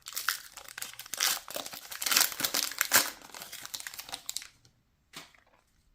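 Foil wrapper of a hockey card pack crinkling and tearing as it is opened and the cards are pulled out, for about four and a half seconds, then one short rustle.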